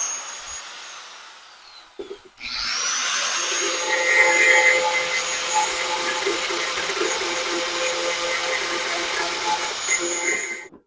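Handheld power tool: its motor whine winds down over the first two seconds, then it spins up again with a quick rising whine about two and a half seconds in and runs at a steady high speed until it cuts off just before the end.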